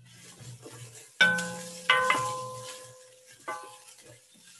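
A wooden spoon stirring onion and garlic in a stainless steel pot, knocking the pot three times so that the metal rings for about a second each time; the first knock is the loudest. Under it, hot oil sizzles faintly.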